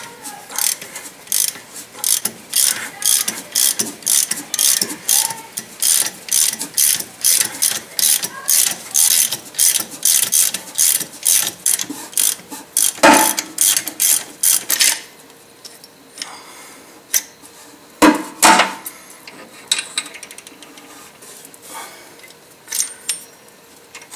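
Ratchet wrench clicking in steady strokes, about three clicks a second, as it turns the forcing screw of a three-jaw harmonic balancer puller pulling the balancer off the crankshaft. The clicking stops about 15 seconds in, with two loud knocks around the middle and later.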